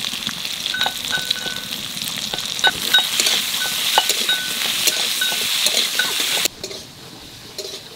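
Potato pieces sizzling as they fry in oil in a kadai, while a spatula scrapes and knocks against the pan as they are stirred. The sizzle cuts off suddenly about six and a half seconds in, leaving only faint clicks.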